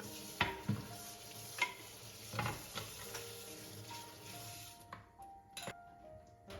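Food sizzling as it fries in a pan, with a utensil knocking against the pan several times while it is stirred. The sizzling stops about five seconds in.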